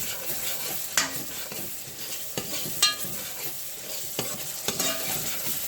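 Curry paste with onion and garlic sizzling in hot oil in a pot, with a spoon stirring and scraping, and a few sharp clicks of the spoon against the pot, one with a brief ring. The curry is thick and starting to stick to the bottom of the pot.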